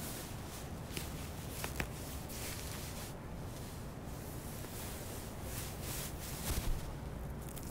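Satin pointe-shoe ribbons rustling and scratching as they are wrapped and tied around the ankle: a few soft, scattered scratchy clicks over a low steady hum.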